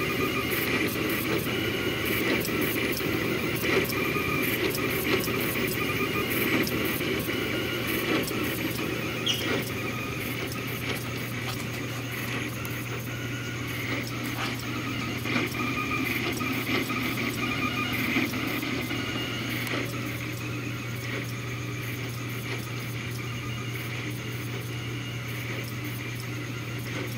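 Rostock delta 3D printer running a print: its stepper motors whine and chirp at shifting pitches as the carriages on 3D-printed PLA bushings move up and down the rods, with small ticks throughout. Under it runs a steady low hum.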